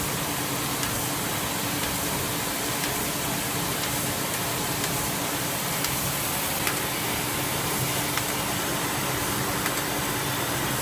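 Ibis Smart-binder SB3 booklet-binding machine running: a steady mechanical rush with a constant low hum and a few faint, scattered clicks.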